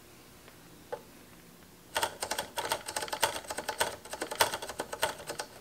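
A single click about a second in, then from about two seconds in a dense run of rapid, irregular clicks and rattles of small hard parts being handled.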